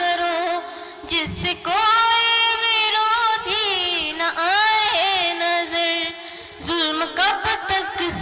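A song: a high voice singing long, wavering held notes over a steady musical backing.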